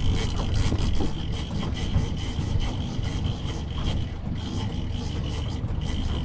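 Small fishing boat's engine running low and steady, a constant low rumble with a faint steady high whine above it, mixed with rubbing noises on board.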